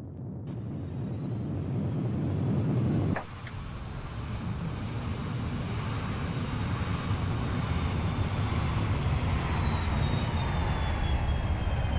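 Jet aircraft engines running loud, a deep rumble under a high whine that slowly falls in pitch. There is a sudden break about three seconds in, after which the sound builds up again.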